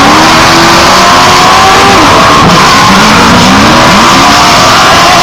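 Several off-road race trucks and buggies running at full throttle, very loud, their engines overlapping with pitches that climb and then drop as they accelerate and shift.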